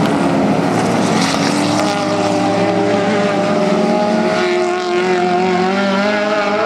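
A field of race cars at racing speed, several engine notes overlapping, their pitches sliding down and back up as they go through a corner and away.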